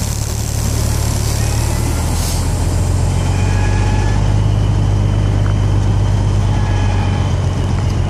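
Car-carrier truck's diesel engine running with a steady low drone, heard from inside the cab as the truck moves slowly.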